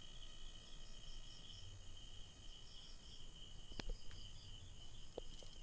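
A steady, high-pitched, slightly pulsing insect-like trill goes on in the background. A little before four seconds in a metal spatula knocks once against the wok as it goes in to stir the simmering fish curry, followed by a couple of soft ticks near the end.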